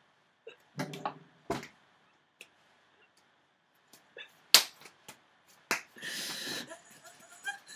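Hands slapping and rubbing together in a few sharp smacks, the loudest about halfway through, with a short vocal sound about a second in and a brief noisy rush about six seconds in.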